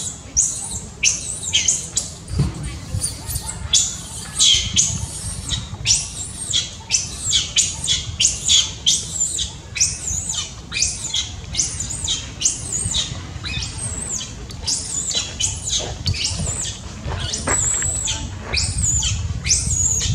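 Baby macaque crying: a long run of shrill, high-pitched cries, about two a second, each arching up and falling away, with a steady low rumble underneath.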